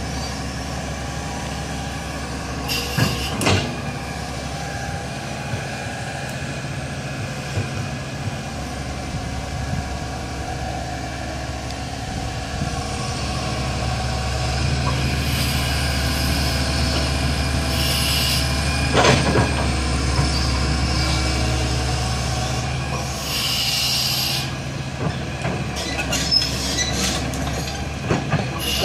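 Hydraulic tracked excavator's diesel engine running under load as it digs and swings its bucket, a little louder in the middle while the loaded bucket is lifted. Metal knocks and clanks from the bucket and boom, the loudest about two-thirds of the way through, and short bursts of hissing.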